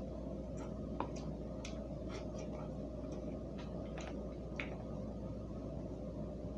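Small, irregular clicks and wet smacks of a person eating instant noodles, about ten in all, over a steady low background hum.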